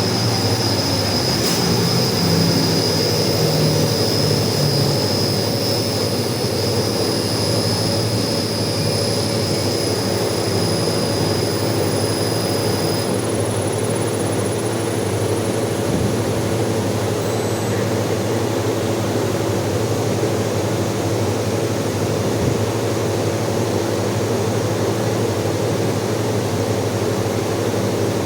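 Building water pump running, a steady low drone with water noise heard inside the flat. A thin high tone over it stops about halfway through.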